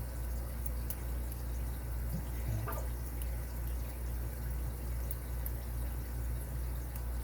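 Steady low hum with a few faint, scattered ticks of a lock pick probing the pins inside a padlock while tension is held on the core.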